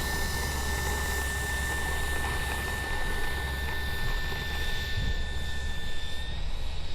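Electric ducted-fan RC jet whining steadily in flight, the whine fading out near the end, with wind rumbling on the microphone.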